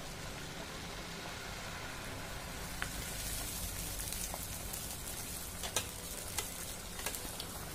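Potato-masala puri deep-frying in smoking-hot oil in a steel kadai, sizzling steadily just after being dropped in, with a few sharp ticks and pops in the second half.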